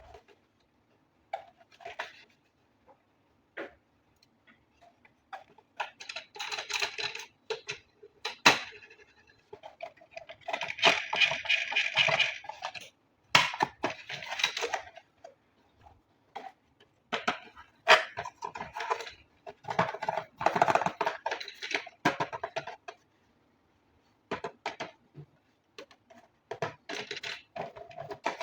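Packaging and hard plastic parts being handled during an unboxing: irregular bursts of rustling and crinkling, with sharp clicks and knocks in between.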